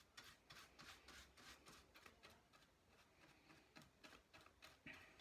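Large paintbrush dabbing and stroking paint onto a papier-mâché rock surface made of glue and toilet paper: faint, rhythmic brushing scratches at about three or four a second, thinning out in the middle.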